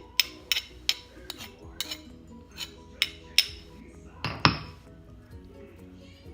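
Kitchen utensils clinking against dishes: a string of sharp clinks about every half second, then a louder clatter about four and a half seconds in, over soft background music.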